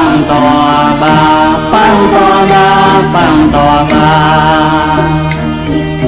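Buddhist devotional song: a voice singing a chant-like melody in long, wavering held notes over a steady drone and instrumental accompaniment.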